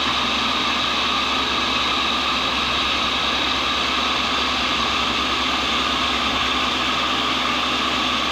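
Cincinnati tool and cutter grinder's electric motor running steadily, spinning its diamond cup wheel, an even hum with a constant pitch.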